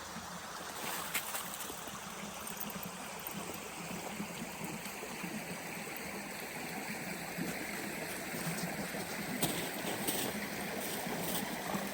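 Steady rushing noise with a few faint ticks, like wind or running water outdoors.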